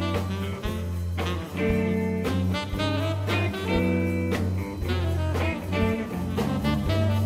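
Instrumental background music in a jazz style, with a steady bass line and a regular beat.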